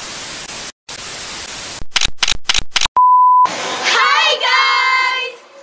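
White-noise static hiss in two stretches, then a quick run of about five short static bursts, then a loud, steady beep tone lasting about half a second. Just after three and a half seconds in, a group of young women scream and cheer excitedly together.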